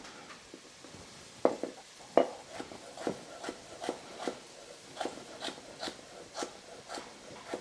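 Chef's knife dicing carrot sticks on a wooden cutting board. The blade comes down through the carrot onto the wood in a run of sharp knocks, about two a second, starting about a second and a half in.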